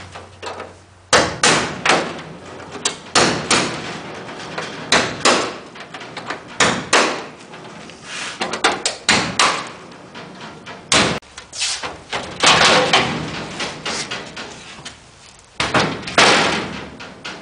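Irregular hammer blows on a tool held against a Cessna 180's thin aluminium wing skin, the sheet ringing and rattling as it is knocked and worked loose during the wing tear-down.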